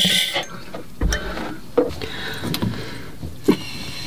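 A steady hissing noise that cuts off sharply about half a second in, followed by scattered knocks and clicks of hands handling hoses and fittings in a boat's locker.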